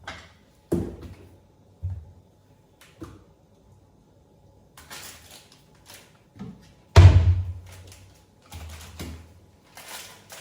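Kitchen handling sounds: a string of sharp knocks and taps of containers and utensils on the counter, some rustling, and one loud thump about seven seconds in.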